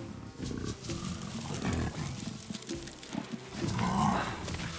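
Leopard growling in several short rough bursts, the loudest about four seconds in.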